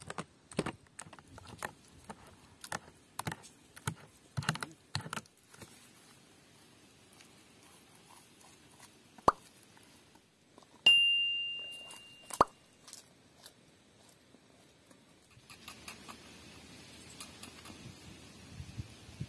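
A quick run of sharp clicks and snaps for about five seconds. Then an on-screen subscribe prompt plays its sound effects: a click, a bright bell ding that rings out for about two seconds, and another click. Near the end comes a soft rustling hiss with small crackles as kindling is lit with a match.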